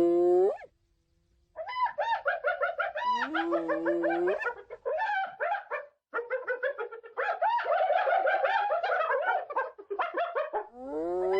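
Spotted hyenas calling: a rising whoop at the start and another near the end, with long runs of rapid, short, stuttering giggle-like calls in between, several animals overlapping.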